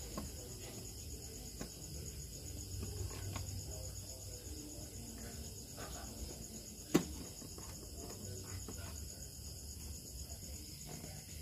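Crickets chirping steadily in the background, with a few faint knocks and one sharp click about seven seconds in.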